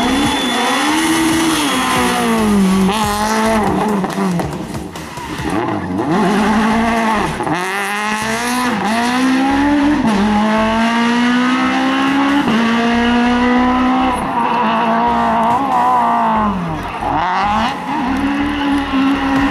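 Rally car engine driven hard through the gears: its pitch climbs in runs and drops back at each gear change. It sags lower where the car slows for corners, once near the middle and again near the end.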